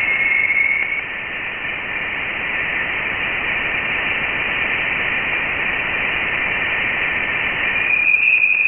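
Sonified spacecraft radio recording of solar wind plasma oscillations, pitched up into the audible range: a steady radio-static hiss. A thin whistling tone sits in it about the first second, and a brighter one comes in near the end.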